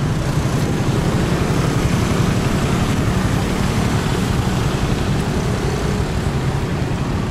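Street traffic with motorcycles and scooters running close by: a steady engine drone.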